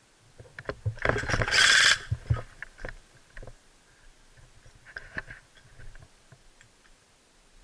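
Footsteps crunching on brick rubble and gravel, with gear rustling. A loud scuffing scrape comes about a second and a half in, then lighter scattered steps and clicks.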